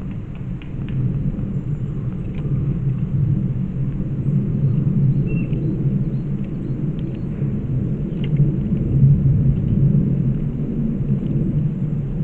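Steady low rumble of wind buffeting the microphone, with a few faint ticks and a brief high chirp about five seconds in.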